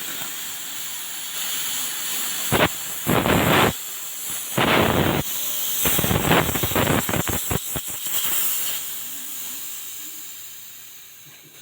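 Pressurised gas blown through a Polytron refrigerator's tubing, hissing in several bursts. The middle stretch is crackling and uneven, and it ends in a steady hiss that fades out. This is typical of flushing the evaporator line to clear oil that has risen into it.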